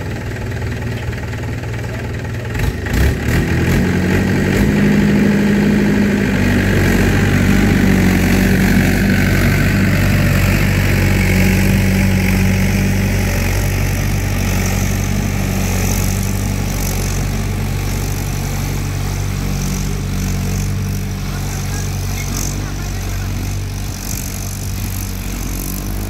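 A motor engine running steadily with a low, even hum that grows louder about three to four seconds in and then holds.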